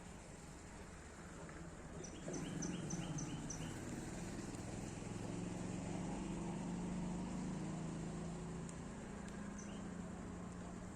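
Outdoor garden ambience: a low steady drone, with a quick run of six short high chirps about two seconds in and one more chirp near the end.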